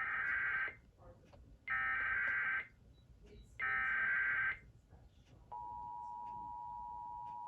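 Emergency Alert System SAME header: three bursts of digital data tones, each under a second long with about a second between them, encoding a Local Area Emergency alert. About two-thirds of the way in, the EAS two-tone attention signal (853 and 960 Hz) begins and holds steady, warning that a spoken alert message follows.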